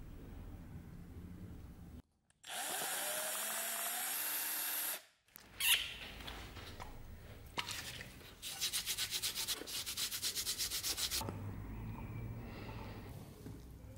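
Glue and powder filler being stirred with a stick in a plastic cup: quick, even scraping against the cup, about eight strokes a second for a few seconds in the middle. A louder steady hiss comes in the first few seconds.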